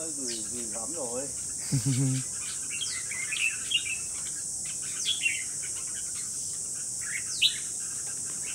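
Caged red-whiskered bulbuls giving short chirps and quick falling whistled calls, scattered through, over a steady high insect buzz. A couple of brief low voice sounds come in the first two seconds.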